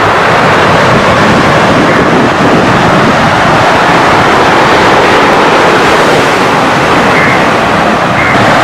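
Surf breaking on a sandy beach, a steady loud rush of waves mixed with wind blowing on the microphone.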